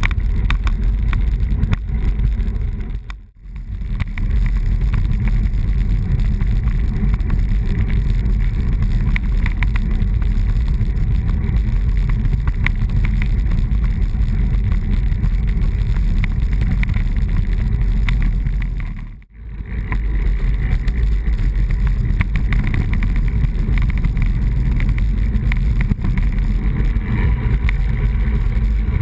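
Steady wind rumble on a bike-mounted action camera's microphone as the road bike rolls along, mixed with tyre and road noise. It is heaviest in the low end and drops out briefly twice, about three seconds in and again about two-thirds of the way through.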